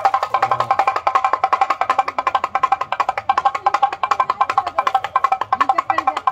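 Rapid, steady drumming on a small hand drum, about a dozen sharp strikes a second, with a ringing pitched tone.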